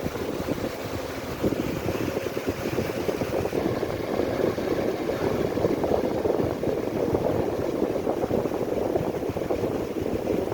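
Steady rumble of a piling rig's engine running at work, with a faint steady tone in the first few seconds.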